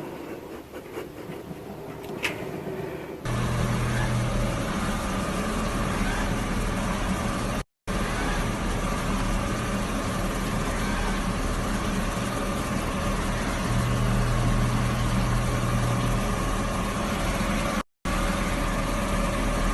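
A steady motor hum, like an engine running, that starts suddenly a few seconds in and cuts out briefly twice. Before it sets in there is only faint ticking.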